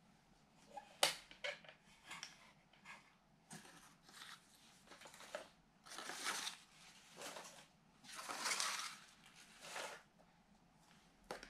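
Folded paper origami birds (cocottes) being picked up off a table and put into a wooden box: a string of soft paper rustles and light taps, with one sharper click about a second in.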